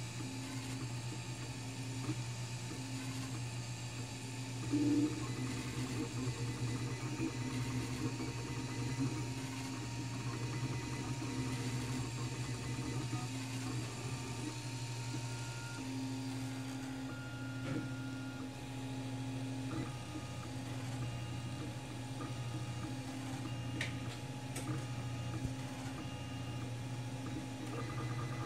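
Wanhao Duplicator 4 dual-extruder 3D printer printing a 20 mm calibration cube: its stepper motors whine in shifting tones that start and stop as the print head moves, over a steady hum. A short louder sound comes about five seconds in.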